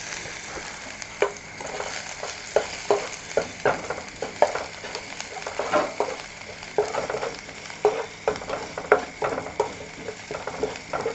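Chopped garlic and ginger sizzling in hot oil in a stainless steel pot, with the ladle scraping and knocking against the pot as it is stirred, about two or three strokes a second.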